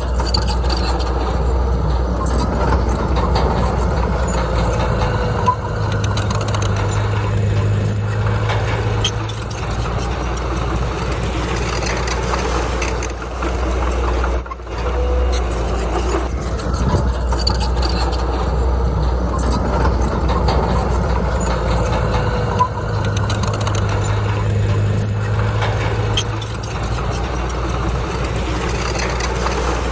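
Heavy diesel earthmoving machine running continuously under load, with a steady low rumble. The engine note swells for a few seconds twice, about fifteen seconds apart, and briefly drops away about halfway through.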